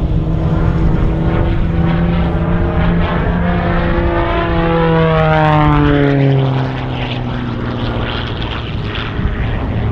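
MXS-RH aerobatic monoplane's propeller engine droning in flight. It grows loudest about five to six seconds in, and its pitch falls steeply as it passes, then runs steady and lower.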